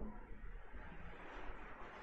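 Faint background noise: a steady low hum under a soft hiss, with no distinct events.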